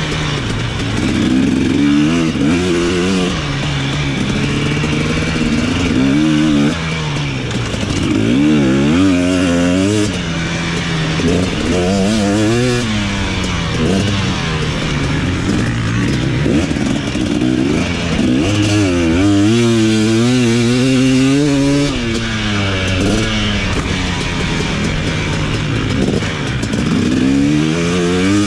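KTM 250 SX two-stroke motocross engine being ridden hard, recorded on board: it revs up and backs off again every few seconds as the rider works the throttle around the track.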